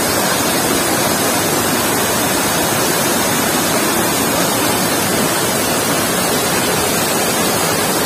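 Waterfall pouring over rock into a pool, a steady, loud rush of water.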